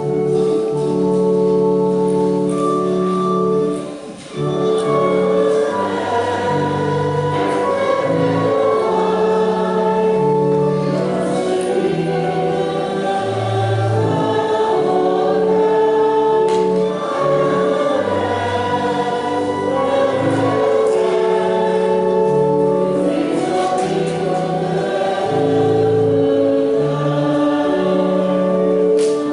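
A choir sings a hymn over a sustained organ accompaniment. Held instrumental chords come first, and the voices enter after a brief dip about four seconds in.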